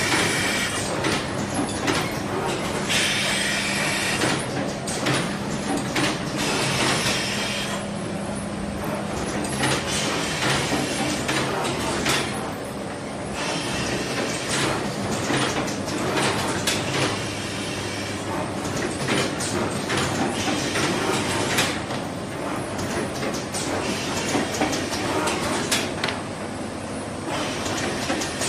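Semi-automatic paper box gluing and forming machines (PC850A gluer with PC450S former) running: a steady motor hum under continuous, uneven mechanical clatter.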